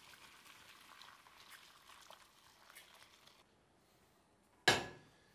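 Chicken stock pouring from a stockpot through a fine-mesh sieve into a pot, a soft steady splashing that stops about three and a half seconds in. Near the end comes a single loud knock that rings briefly.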